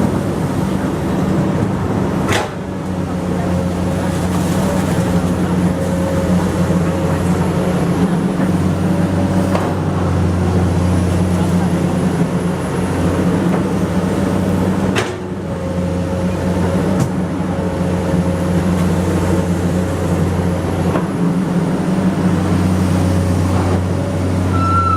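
Komatsu PC200 hydraulic excavator's diesel engine running steadily under working load, with a faint hydraulic whine; the engine note strengthens in stretches as it works. Twice the sound breaks off suddenly and resumes.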